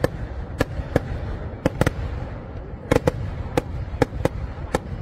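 Festival fireworks display: aerial shells bursting in an irregular string of sharp bangs, about ten in five seconds, some in quick pairs, over a steady low rumble.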